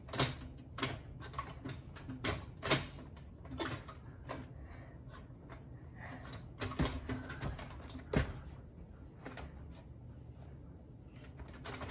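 Irregular knocks and light clanks from a steel-framed home gymnastics bar as a child hangs and moves on it, with a few louder knocks among them, over a low steady hum.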